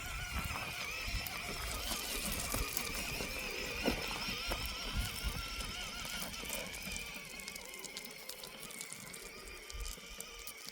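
Electric motor and gearbox of an Axial SCX10 III RC rock crawler whining, the pitch wavering as the throttle is worked while it climbs a pile of rocks, with small clicks and knocks of the tyres on the stones. The sound gets fainter toward the end.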